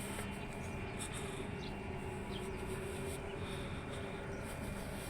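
A steady low machine hum under an even background noise, fading in and out a little.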